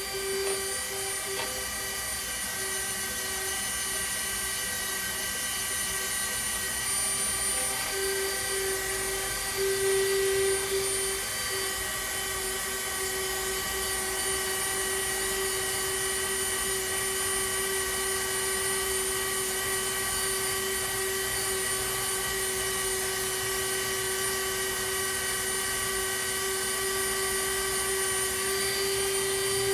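Dremel rotary tool with a sanding drum running at a steady high pitch as it sands down a micarta knife handle scale, briefly louder about ten seconds in.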